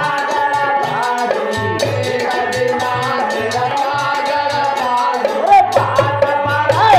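Devotional bhajan music: held melodic instrument lines over a steady percussion beat, with a couple of quick swooping notes near the end.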